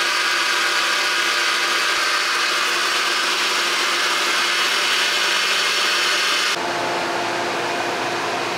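Maple sap pouring out of a cloth filter sock and splashing onto a mesh screen in a stainless steel tank: a steady, even rushing splash. About two-thirds through it cuts suddenly to a quieter steady hum.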